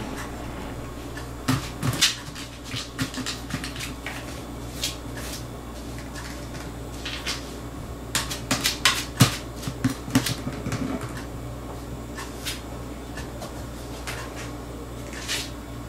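A cat's paws batting and clawing at a plastic food container: scattered taps and knocks on the plastic, busiest about halfway through, over a steady low hum.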